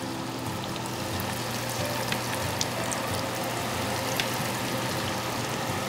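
Panko-breaded fish pieces frying in hot oil in a cast iron skillet: a steady sizzling hiss with scattered small pops and crackles.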